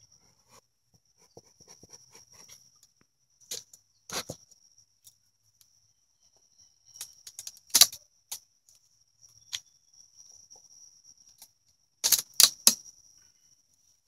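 Sharp clicks and knocks of beekeeping equipment being handled during a hive inspection: a few separate knocks, then a quick run of three near the end, over a faint steady high-pitched tone.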